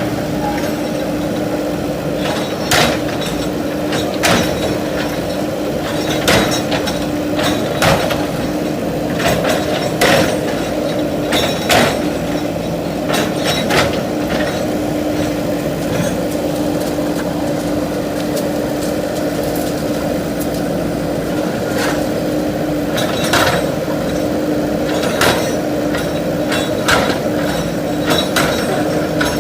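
JCB 3DX backhoe loader's diesel engine running steadily, with about a dozen sharp knocks and crashes at irregular intervals as the machine breaks up masonry and debris.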